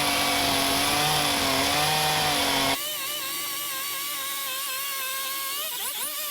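Petrol carving chainsaw running at high revs as it cuts wood. About three seconds in the sound changes abruptly to a quieter, higher-pitched steady whine.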